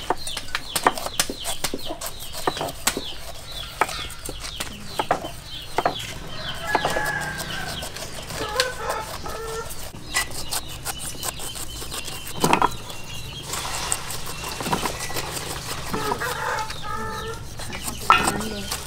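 Chickens clucking, mixed with frequent short clicks and scrapes of a small knife cutting and trimming the rind of a pineapple.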